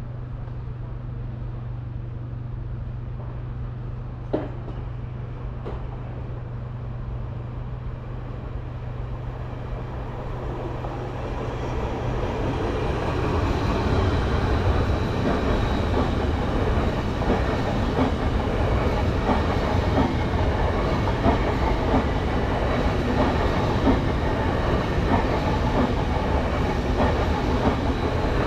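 A train approaching and then passing: a low steady hum gives way to a rumble that swells over a few seconds, then a loud steady run of wheels on rail with a rhythmic clickety-clack. There is one sharp click about four seconds in.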